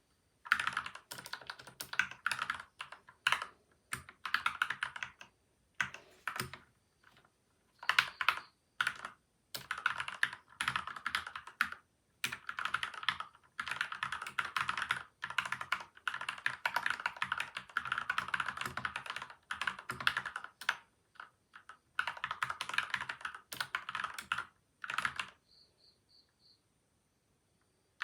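Typing on a PCL87 mechanical keyboard with lubed switches and stabilizers and tape and foam mods. The keys go in quick bursts with short pauses in between, and the typing stops about three seconds before the end.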